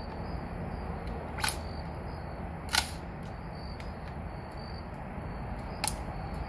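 Three sharp mechanical clicks from an FGC-9 carbine's trigger and hammer as the trigger is pulled, the second about a second after the first and the third some three seconds later, with faint insects chirping behind.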